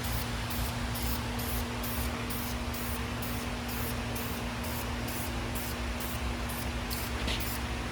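Paint being sprayed onto a Chevy small-block 350 engine: a steady hiss, with an even, fast pulsing in the highest sounds, over a steady low hum.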